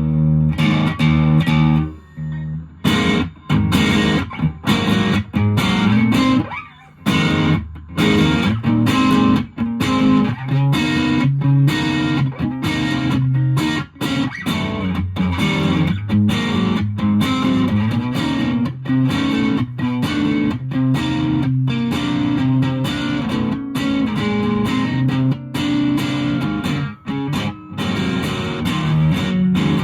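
Electric guitar, a Fender Japan Jazzmaster through a Boss DS-1 distortion pedal and an ELK FSB-45 amp, heard through a smartphone's microphone. A chord rings and stops about two seconds in, then a riff of short notes follows with brief stops.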